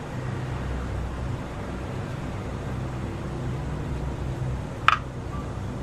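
Steady low hum, with a single sharp metallic clink near the end as a steel spoon knocks the stainless steel idli plate while chicken pieces are placed on the batter.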